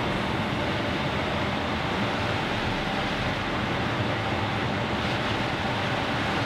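Toyota Hilux 3.0 four-cylinder turbodiesel running on a chassis dynamometer, with its tyres spinning on the rollers: a loud, steady, even mechanical noise with no change in pitch or level.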